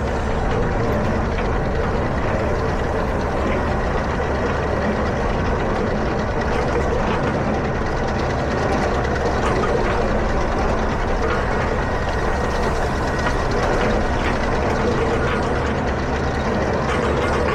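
Tractor engine running steadily under load, a constant loud drone with no change in pitch or level.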